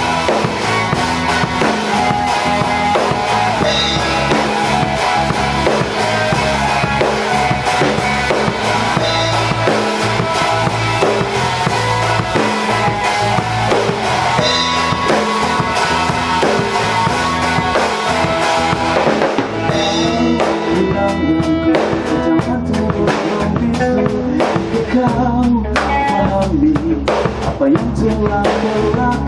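A rock band playing live in a rehearsal room: drum kit, electric bass and two electric guitars, with no vocals. About twenty seconds in, the cymbal wash drops away and the playing turns sparser, with separate drum hits standing out.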